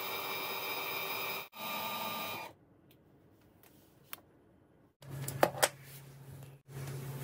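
Two loaded 12 V linear actuators running: a steady electric motor whine that breaks off for a moment about one and a half seconds in, then stops about two and a half seconds in. After a quiet pause, a low steady hum with two sharp clicks as the switch and its wires are handled.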